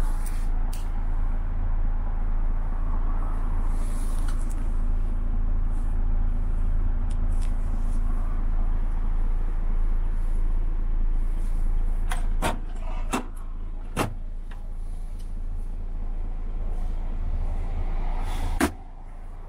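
Steady low hum inside a DAF XF106 truck cab, with three sharp clicks about two-thirds of the way in. Near the end comes a louder click as the cab fridge drawer is pulled open, and the low hum drops away.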